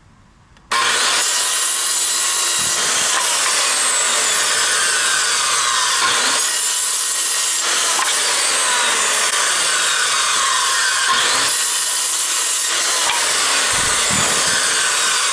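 Makita corded circular saw cutting lengthwise along a wooden board, a loud, steady cutting noise that starts suddenly about a second in.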